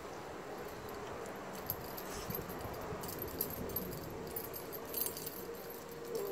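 Kai Ken dog chewing and crunching pieces of cooked wild boar leg, with a scatter of short crackles and clicks. Light metallic jingling comes from its collar and leash clip as it moves its head.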